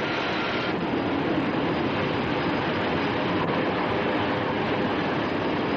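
Steady, continuous machinery noise of a glass-pressing line moulding colour picture-tube faceplates; the noise shifts slightly under a second in.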